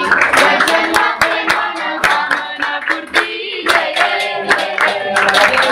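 A crowd of students sings a Ganesh aarti together and claps in time, about three claps a second. The clapping thins briefly a little past halfway, then picks up again.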